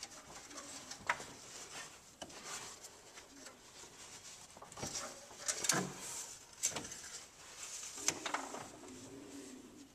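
Scattered light knocks and rubbing of an engine-oil dipstick being handled and slid in its tube while the oil level is checked.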